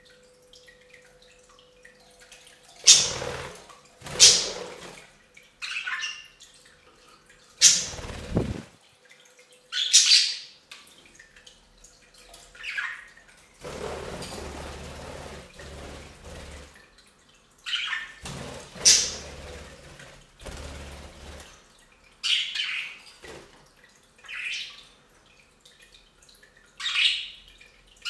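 Budgies chirping and squawking in about a dozen short, loud, harsh calls, with a small pet water fountain trickling faintly underneath.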